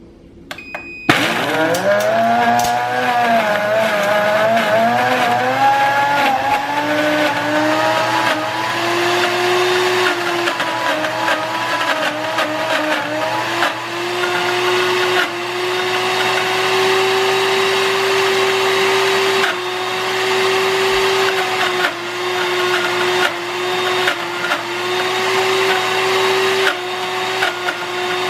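Elechrome high-speed blender crushing walnuts. A short beep, then about a second in the motor starts. Its pitch climbs over the first dozen seconds and then holds steady, while the nut pieces rattle and tick against the jar as they are ground to a fine, oily meal.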